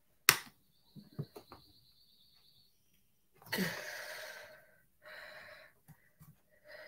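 A sharp click, then a few lighter clicks, as fingernails pry at the plastic back cover of a mobile phone. Later come two longer huffs of breath.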